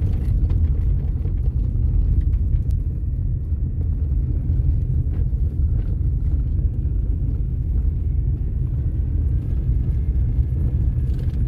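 Steady low road rumble heard inside a car's cabin as it drives slowly over a gravel road: tyres rolling on the gravel, with a few faint ticks.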